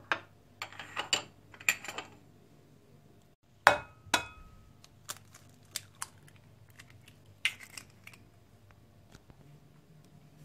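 Eggs knocked against the rim of a glass mixing bowl and their shells broken open: a series of sharp taps and cracks, the loudest about four seconds in with a brief ring from the glass.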